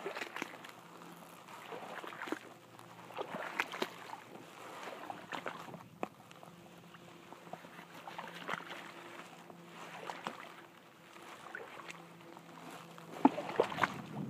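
Legs wading through shallow swamp water, with a splash and slosh at each step about every second and a half; the loudest splashes come near the end.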